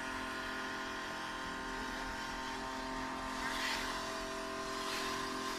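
Steam/high-pressure washing machine running with a steady mechanical hum, with two short hisses about three and a half and five seconds in.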